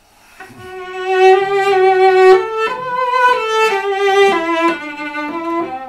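Cello bowed legato, the bow staying on the string: a smooth melody of connected sustained notes that climbs a little, then steps down and fades near the end.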